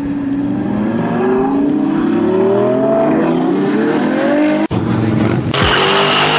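Sports car engine accelerating hard, its pitch climbing over several seconds. About two-thirds of the way in it cuts off abruptly to a loud hiss of tyres spinning in a burnout.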